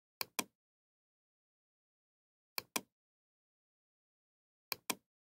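Computer mouse clicks: three sharp double clicks, each a press and release, about two and a half seconds apart.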